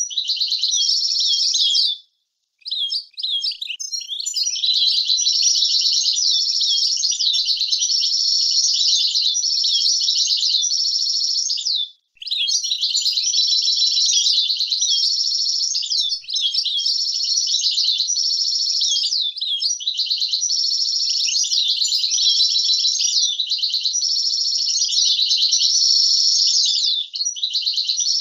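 European goldfinch of the 'Gaza' singing line giving a long, nearly continuous song of rapid twittering phrases and trills. It breaks off briefly about two seconds in and again near twelve seconds. This is a clean recording of approved song 'language', used to tutor young goldfinches.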